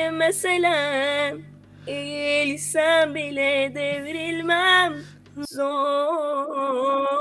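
A woman singing solo without accompaniment, holding long notes with vibrato, with short breath pauses about a second and a half in and again near the five-second mark.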